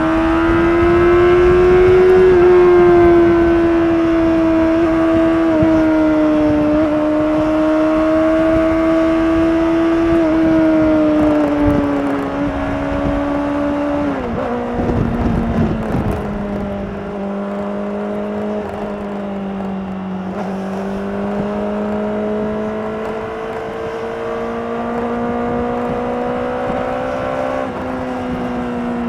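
Honda CBR600RR inline-four engine through its stock exhaust, running at steady cruising revs. About halfway through the revs drop sharply, then hold lower and creep slowly back up, with a low rumble underneath.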